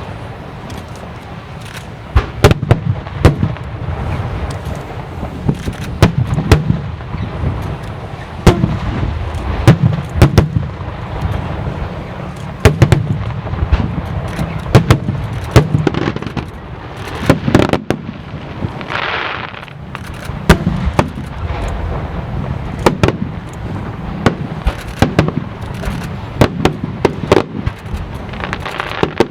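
Aerial fireworks show: shells bursting in a steady barrage of sharp bangs, several every few seconds, with a brief hiss about two-thirds of the way through.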